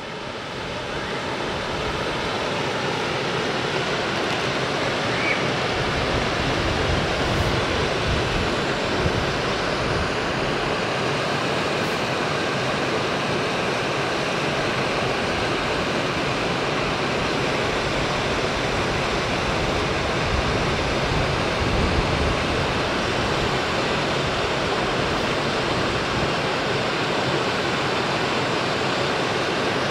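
Shallow rocky creek running over stones: a steady rush of water that fades in over the first couple of seconds and then holds even.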